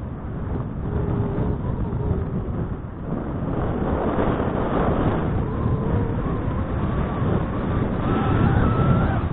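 Snowboard sliding over snow, a steady rushing scrape mixed with wind buffeting the action camera's microphone, growing louder about three seconds in and again near the end.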